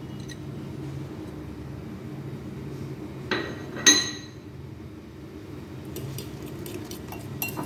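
Two ringing clinks against a glass mixing bowl, about half a second apart, over a steady low hum.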